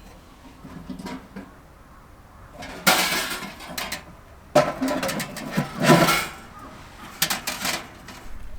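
Handling noise from things being moved about: three bursts of clatter and rustle, about three seconds in, around five to six seconds, and briefly near the end.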